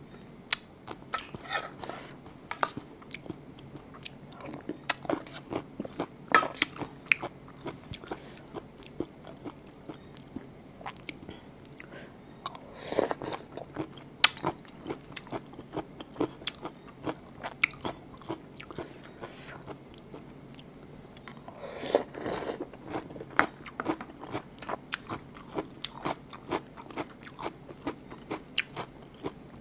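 Close-up eating of raw blue swimming crab: crab shell cracking and crunching between the teeth, with chewing and wet mouth sounds, in irregular sharp clicks and cracks and a couple of longer, louder swells.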